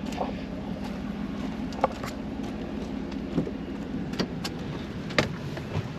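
Car engine and road noise: a steady low hum with a few scattered light clicks and taps.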